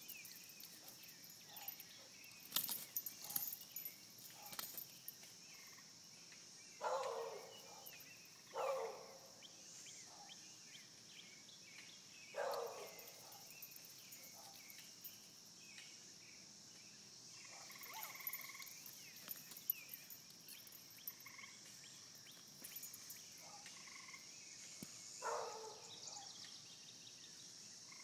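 Steady high-pitched chorus of crickets and insects. Four short, louder calls stand out about 7, 8.5, 12.5 and 25 seconds in, with scattered clicks and rustles between them.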